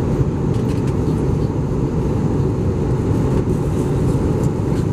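Steady cabin noise inside an Airbus A320 in descent: a low, even rumble of airflow and engines.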